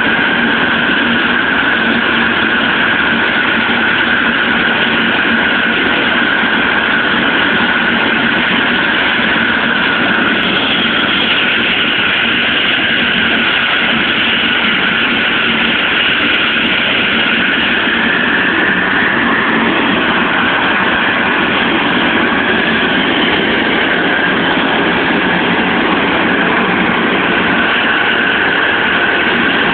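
Helicopter turbine engines running while the aircraft sits on the ground, a loud steady whine over a rushing noise. The whine's pitch rises slightly for a few seconds past the middle, then settles.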